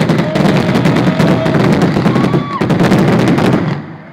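Fireworks going off in a dense, rapid barrage of cracks and bangs that stops abruptly near the end.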